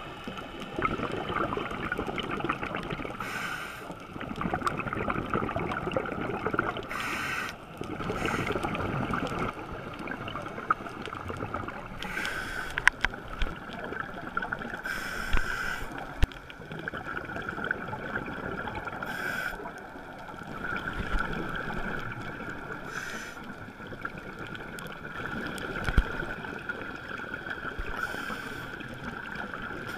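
Underwater scuba breathing through a regulator: a short hissing burst of exhaled bubbles about every four seconds, over a steady muffled hum of the water.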